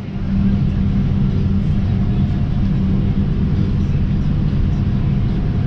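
A vehicle engine running steadily at an even speed, a low constant hum.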